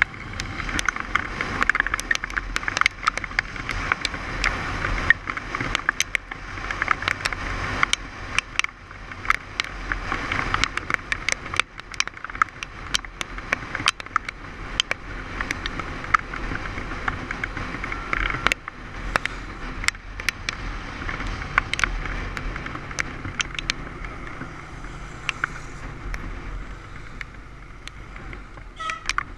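Steady road noise of a bike riding along a wet road, a rushing hiss with a low rumble, broken by frequent sharp clicks and knocks.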